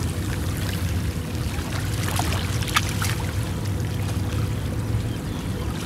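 Small waves lapping and sloshing against the rocky shoreline over a steady low rumble, with a couple of faint clicks midway.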